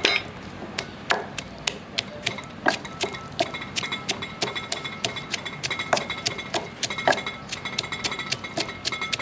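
A pestle pounding in a mortar, crushing onion for a chilli paste, as a steady run of knocks about three a second.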